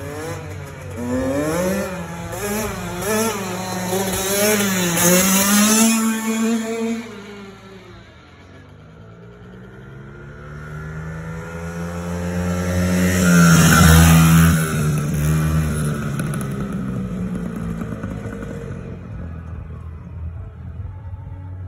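Small motorcycle engine revving up and down several times, then accelerating and passing close by: pitch and loudness climb to a peak about 14 seconds in, then drop away as it passes.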